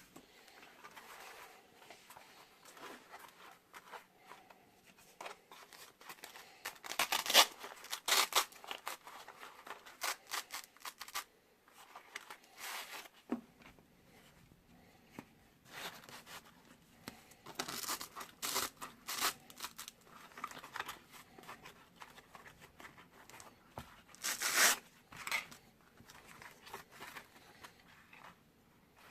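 Handling noise from a pistol holster and pistol: irregular rustling, scraping and light knocks, with a few louder scrapes as the pistol is worked into the holster.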